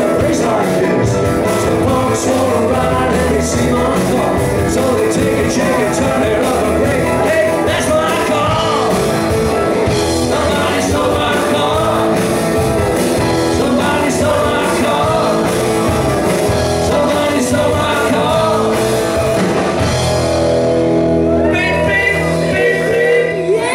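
Live rock band playing at full volume: electric guitar, bass guitar and drums, with a singer. The cymbals thin out about twenty seconds in as the song nears its end.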